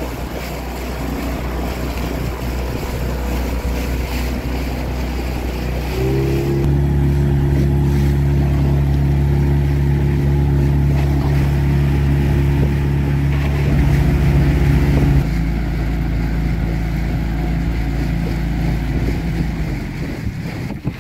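Small boat's outboard motor running under way, with water rushing past the hull. It picks up speed about six seconds in, eases back a little about fifteen seconds in, and dies down near the end.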